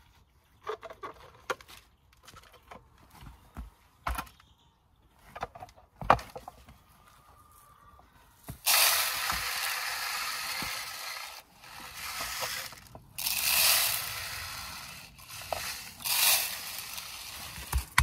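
A plastic tube bird feeder is handled with a few clicks and knocks, then bird seed is poured into it with a steady rustling hiss, in three pours through the second half.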